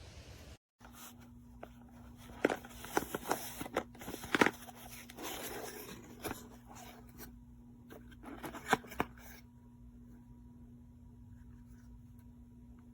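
Hands handling small objects: a run of sharp clicks, crinkles and scrapes over several seconds, then settling, over a steady low electrical hum.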